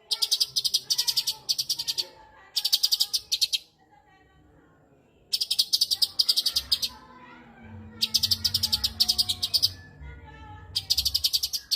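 Cucak cungkok singing: bursts of rapid, high, evenly repeated notes about a second long, broken by short pauses, over fainter lower warbling.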